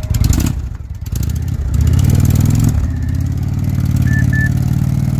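Indian cruiser motorcycle's 111-cubic-inch V-twin pulling away from a stop: the engine note rises in first gear, drops as it shifts up a little over two and a half seconds in, then runs steadily as the bike rides off.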